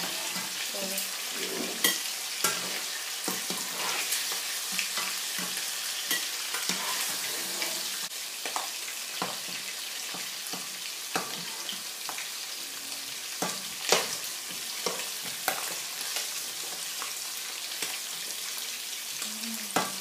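Shrimp and sea bass pieces sizzling steadily in oil in a nonstick frying pan, stirred with a spatula that taps and scrapes against the pan many times, one sharp tap standing out about two-thirds of the way through.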